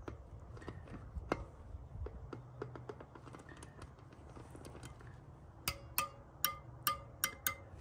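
Dirt bike wheel spokes being tapped: faint, dull ticks at first, then near the end a quick run of sharp taps, about three a second, each ringing with a clear pitched ping like a guitar string, the sound of a spoke at proper tension.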